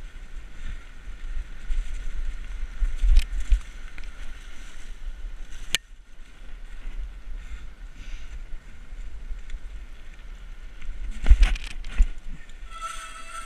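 Bicycle ride on a rough riverside path heard through a handlebar-mounted action camera: wind buffeting the microphone, with sharp knocks and rattles from the bike over bumps, loudest a little past the start and again near the end, over the steady rush of the river. A brief high squeal sounds near the end.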